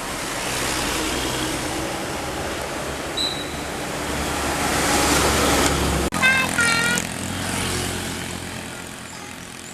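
Tour bus passing close, its engine drone and tyre noise building to a peak about six seconds in. A sharp click then sets off a brief burst of its telolet musical air horn, a few quick stepped notes, before the bus noise fades away.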